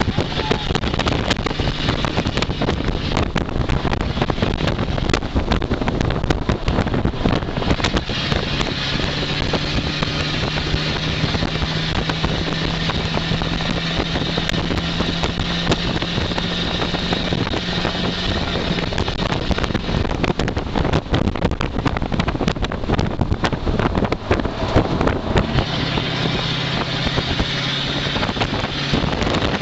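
1963 Ford Thunderbird race car's engine running steadily at track speed, heard from inside the cockpit over a noisy rush of wind and road. The engine note changes pitch a few times, about a third of the way in, past the middle and near the end.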